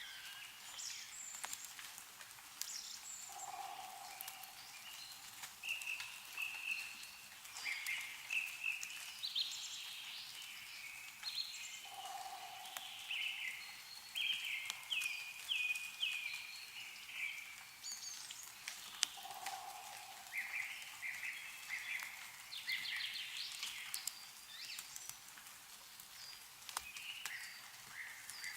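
Several songbirds chirping and trilling over one another, with scattered sharp drips of meltwater falling from snow-covered trees. A lower, short call sounds three times, about eight seconds apart.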